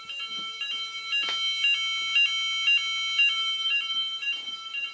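Electronic fire alarm sounder going off: several high-pitched tones switching back and forth in a repeating pattern, with one tone pulsing about twice a second. It gets louder about a second and a half in.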